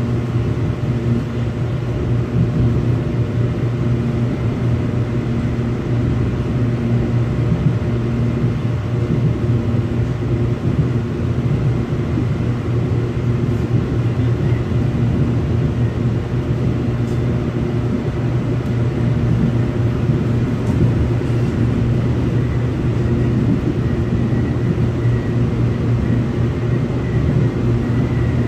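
Seoul subway Line 4 train running at steady speed, heard from inside the car: an even rumble of wheels on rail with a low hum and a faint high steady tone over it.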